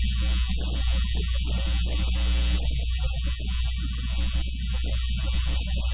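Loud steady electrical mains hum with a constant hiss on top, typical of a poor audio recording chain. A muffled voice talks underneath it.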